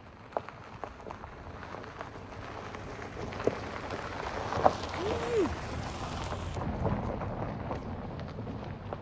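Subaru Forester driving slowly past on a gravel dirt road: tyres crunching over the dirt, growing louder as it comes close about five seconds in and easing off as it pulls away, with a few sharp pops of loose stones under the tyres.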